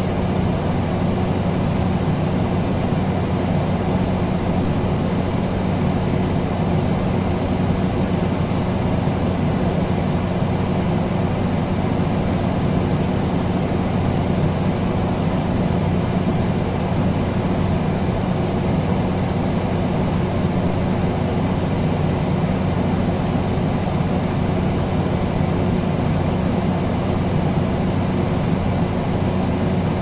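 Air conditioner running steadily: an even rush of air with a constant low hum, unchanging throughout.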